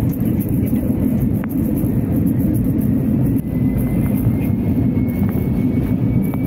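Steady cabin noise inside an Airbus A320 airliner on its descent: the low rumble of the engines and rushing air. A faint thin whine comes in a little past halfway and rises slowly in pitch.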